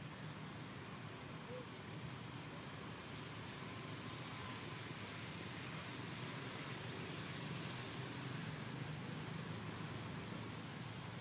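Woodland ambience of insects: a steady high-pitched drone with a rapid, evenly pulsing chirp over it, above a low background rumble.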